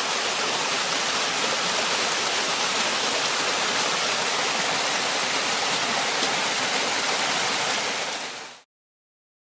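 Steady rush of flowing water from a mountain stream, cutting off suddenly about eight and a half seconds in.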